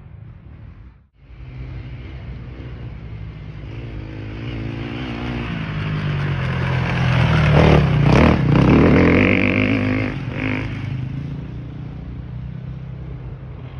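Enduro motorcycle approaching and passing close by, its engine pitch rising and falling as the rider works the throttle. It grows louder, is loudest about eight seconds in, then fades as the bike rides away.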